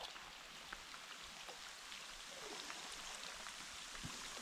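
Faint, steady hiss of light rain falling on a shallow stream's surface, with a few small scattered ticks of drops.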